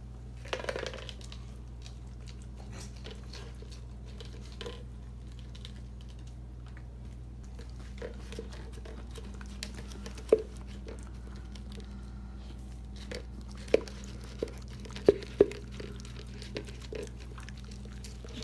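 A dog licking and gnawing at a nearly empty plastic peanut butter jar on a tile floor: soft wet licking and crinkling of the plastic, with scattered clicks and a few sharper knocks in the second half as the jar bumps against the tiles. A steady low hum runs underneath.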